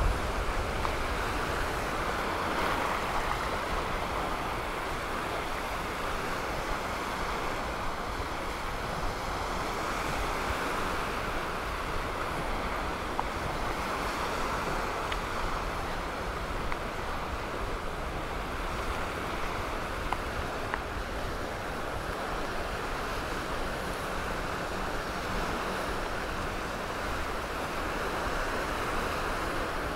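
Steady wash of Gulf of Mexico surf mixed with wind, a continuous even rush with no pitched sounds.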